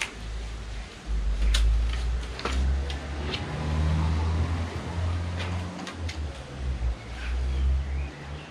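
Scattered light knocks and taps of wooden picture-rail strips being handled and fitted onto a canoe frame, over a steady low rumble.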